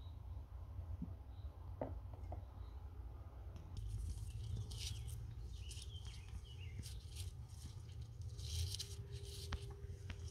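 Hands rustling and crinkling fresh wild garlic (ramsons) leaves as they gather them into a bunch over paper towel, in irregular crackly bursts from about four seconds in. A few light knocks come about two seconds in, and a low steady rumble runs underneath.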